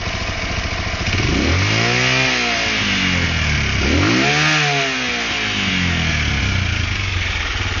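125 cc supermoto motorcycle engine idling and revved twice. The revs rise and fall about a second in and again about four seconds in, then settle back to a steady idle.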